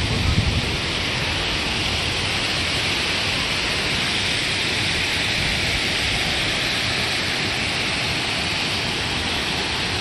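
Water of an artificial three-tier rock waterfall cascading down the rock face into the pool below, a steady rushing splash.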